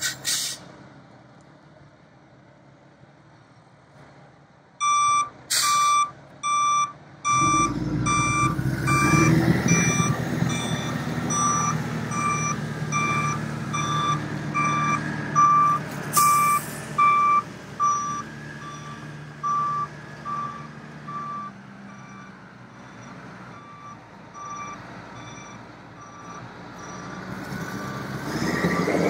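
A truck's backup alarm beeping steadily just under twice a second while the truck's Cat 3126 turbo diesel runs, with water rushing from its sprayers onto the pavement. Two brief sharp hisses of air cut in.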